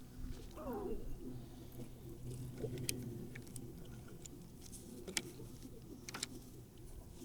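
Light handling noises: scattered sharp clicks and taps over a steady low hum, with a brief falling squeak near the start.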